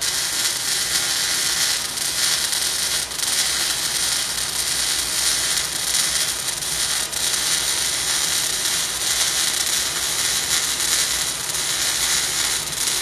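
MIG welding arc crackling steadily as a student runs an overhead fillet weld, with a few brief pops.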